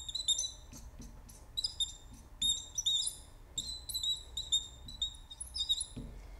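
Marker pen squeaking on a glass lightboard as words are written: a string of short, high squeaks in irregular groups, stopping near the end.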